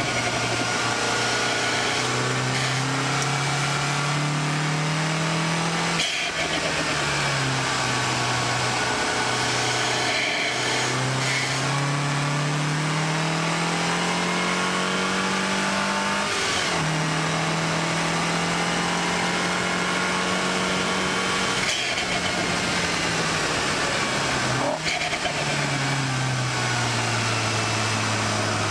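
A 2014 MINI Cooper S's turbocharged 2.0-litre four-cylinder engine running hard through a track lap. Its note climbs steadily several times, drops abruptly with a click at each change, and falls away near the end as the car slows. Wind and tyre rush run underneath throughout.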